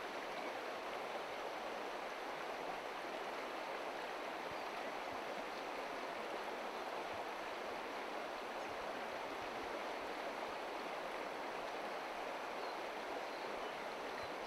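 Steady rushing of a small river flowing over a shallow gravel bed.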